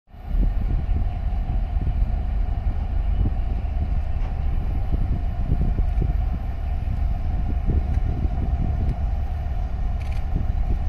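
Wind buffeting an outdoor microphone: a heavy, uneven low rumble that rises and falls in gusts, over a faint steady hum.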